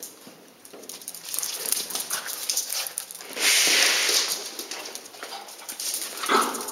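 Small dogs playing on a hard floor: rapid clicking and skittering of claws, a loud scuffle of about a second a little after halfway, and a short dog whine near the end.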